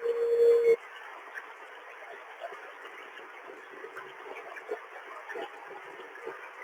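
CB radio receiver on lower sideband: a steady tone cuts off abruptly under a second in, leaving a channel of static hiss with faint crackles and no signal.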